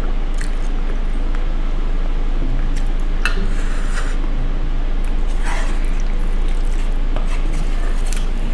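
A fork clinking and scraping against a dish while pasta is eaten, with a few light clicks scattered through, over a steady low hum.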